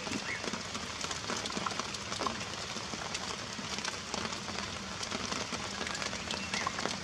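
Heavy rain falling steadily, an even hiss full of many small drop hits.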